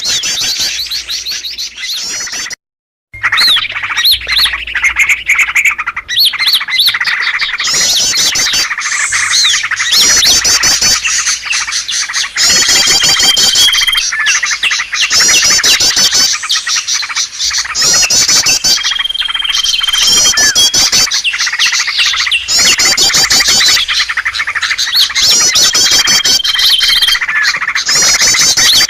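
Small songbirds chirping and twittering densely over each other, a bird-lure recording made to call in small wild birds. A short level whistle recurs every six or seven seconds, and the sound cuts out completely for half a second about three seconds in.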